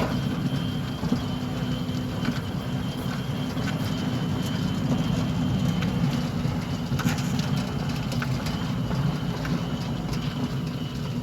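Centurion D5 Evo Smart sliding gate motor running, driving a steel sliding gate along its steel rack. A steady low motor hum carries a thin, steady high whine and scattered light clicks and rattles.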